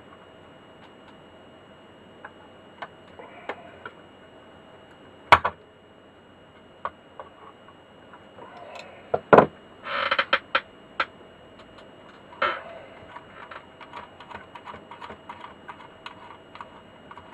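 Pliers and small metal parts being handled to undo the nuts on a meter's terminals: scattered light clicks and clinks, two sharper knocks about five and nine seconds in, and a run of quick small ticks near the end.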